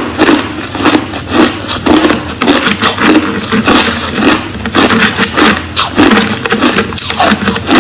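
Crushed ice being chewed close to the microphone: loud, crackly crunching in a steady rhythm of about two crunches a second.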